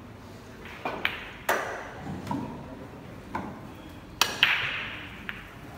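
Pool break: the cue tip smacks the cue ball and it crashes into the rack about four seconds in, the balls clacking apart with a short ringing clatter, then a single ball click a second later. Before it there are a few sharper, separate clicks and knocks.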